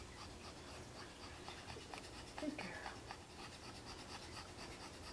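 Faint rustling of hands stroking a Shih Tzu's long fur against a towel, with a few small scratchy sounds.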